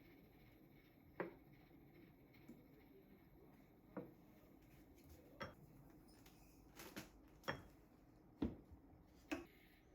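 Light kitchenware clinks and knocks, about seven separate strikes spaced irregularly, against a quiet room.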